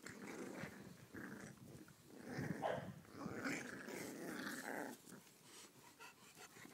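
English bulldog puppies growling in short, rough bursts as they play-fight.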